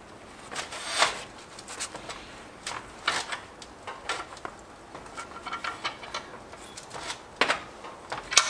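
Metal parts clinking and scraping as a pipe and V-band flange are handled and adjusted in a steel bench vise: scattered short clicks and rubs, with a sharper clank near the end.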